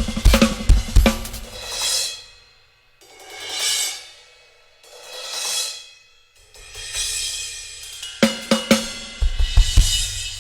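Drum kit played during a sound check: quick drum hits at the start, then three cymbal swells that build and fade one after another. Near the end, snare and bass drum strikes come back with crashing cymbals.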